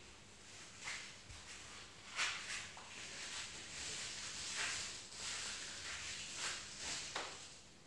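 A person exercising in a push-up plank on a mat: soft noisy puffs of breath and movement every second or two over a faint steady hiss.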